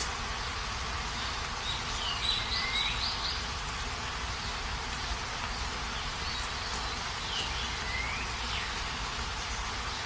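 Steady hiss of outdoor nature ambience, with a bird's short chirping phrase heard twice, about two seconds in and again about seven seconds in.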